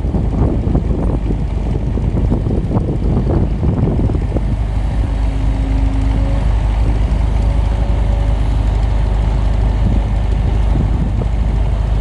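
Heavy construction machine's diesel engine running steadily, with wind buffeting the microphone. Uneven crackling and knocking over the first few seconds.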